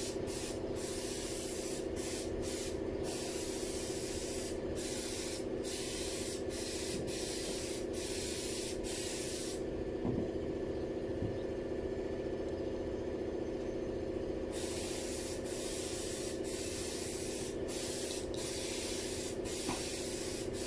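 A steady machine hum under a hissing spray that cuts in and out in short breaks and stops for about five seconds midway.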